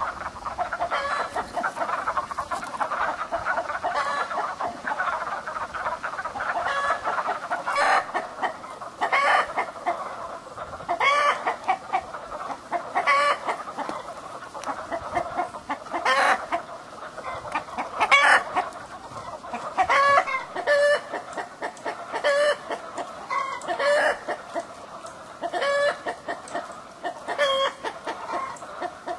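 Chickens clucking and cackling, a dense layer of overlapping calls with loud, sharp cackles repeating every second or two from about a third of the way in.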